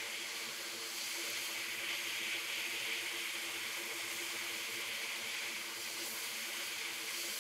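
JBC hot air rework station blowing a steady hiss of hot air while it heats an LCD connector on a MacBook logic board to desolder it.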